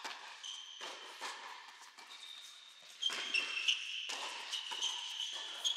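Tennis ball struck by rackets in a doubles rally on an indoor hard court, several sharp hits, with sneakers squeaking on the court surface, the squeaks busiest in the second half.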